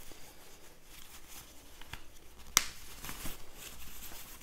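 Polyester rain parka fabric rustling as it is handled and folded, with a single sharp click of a snap fastener about halfway through and a couple of fainter clicks.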